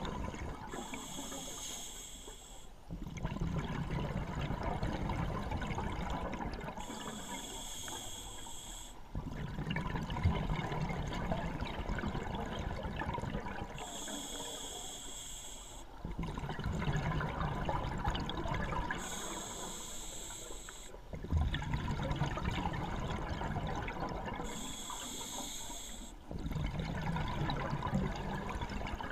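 Scuba diver breathing through a regulator underwater. About two-second hissing inhales alternate with longer rushes of bubbling exhaust, five breaths in all.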